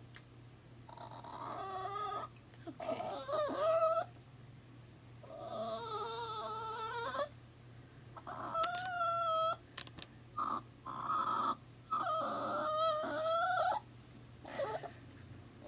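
Italian greyhound puppy crying: a series of about six high, wavering whines, each one to two seconds long. The owner thinks he misses his mother.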